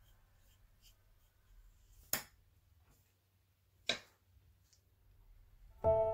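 Two sharp taps about two seconds apart, the second as a paintbrush is put down on a paper-covered table, between a few faint ticks of handling. Soft piano music comes in near the end.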